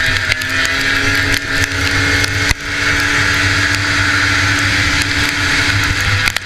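Race snowmobile's liquid-cooled 440 two-stroke engine running hard at high, fairly steady revs, heard from on board over a constant rushing hiss, with a few sharp knocks and a brief dip about two and a half seconds in.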